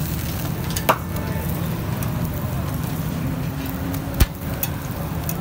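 Metal spatula clinking against a large flat griddle while parathas are turned, two sharp clinks, one about a second in and a louder one near four seconds, over a steady low rumble.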